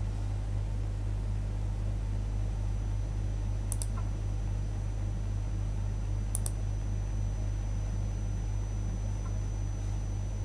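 Steady low hum and room noise, with two short computer mouse clicks, one about four seconds in and one a couple of seconds later.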